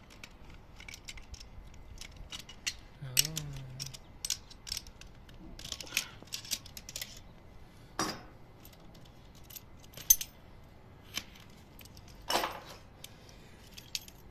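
Copper-pipe flaring tool worked by hand on a copper refrigerant line: a run of small metal clicks and clinks as the flare is formed, with a few louder clanks.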